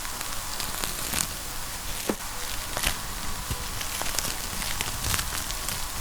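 Fireplace fire crackling: a steady hiss with scattered sharp pops and snaps.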